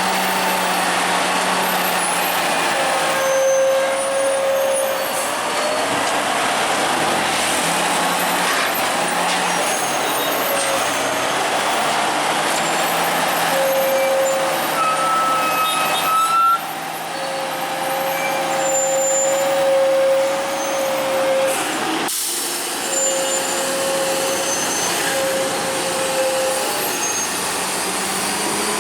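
Heavy truck running on a steep mountain road, with a high steady whine that comes and goes several times.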